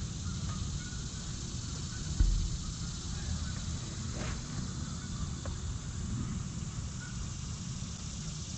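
Outdoor ambience: wind rumbling against the microphone under a steady high hiss of insects, with one low thud about two seconds in.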